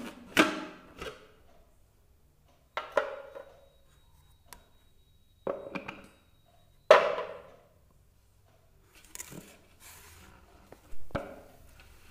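Hard plastic knocks and clatter from the parts of a Preethi Zodiac food processor being handled: feed-tube pusher, lid and bowl taken off after slicing, with the motor stopped. About eight separate knocks with quiet between, the loudest about half a second in and about seven seconds in.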